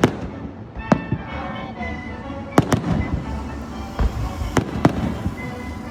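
Aerial fireworks going off: a series of sharp bangs, about seven in six seconds, some close together, over a steady background.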